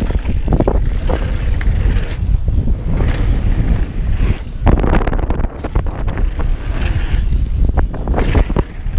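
Heavy wind buffeting on a GoPro's microphone during a fast downhill mountain-bike descent, over the hiss of tyres on loose dirt and gravel. Frequent sharp clacks and rattles come from the bike jolting over the rough trail.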